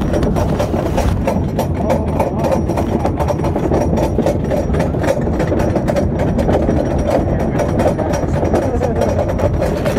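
Wooden roller coaster train climbing the chain lift hill: a steady rumble from the lift chain, with rapid, continuous clacking from the anti-rollback dogs.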